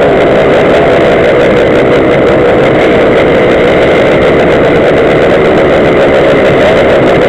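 Small two-stroke engines of gas Go-Ped stand-up scooters idling close by, loud and steady with no revving or breaks.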